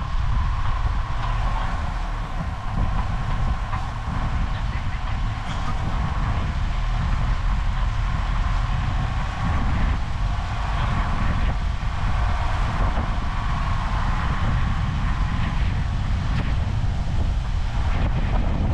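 Steady low rumble of a moving vehicle, with a faint wavering whine over it.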